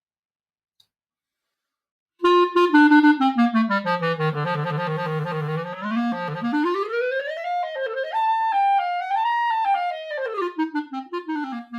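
Clarinet played through a roughly 100-year-old wooden Buffet mouthpiece with a 2.5-strength reed. It comes in about two seconds in with a line stepping down into the low register, then quick runs and phrases climbing back up. The tone is very shrill, harsh and too bright, which the player puts down to an imbalanced facing.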